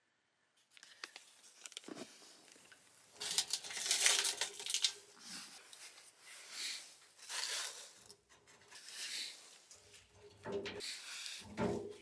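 A lit fire-starter packet crinkling and crackling as it is pushed into a wood stove's firebox. Split firewood then scrapes and knocks as it is loaded in on top, with more knocks near the end.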